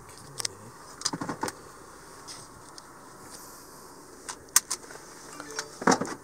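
Handling noise inside a car: sharp clicks and light rattles in short clusters, about a second in, again around four and a half seconds, and loudest near the end.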